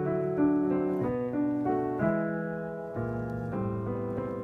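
Piano played slowly in jazz style, a new chord struck about once a second and left to ring.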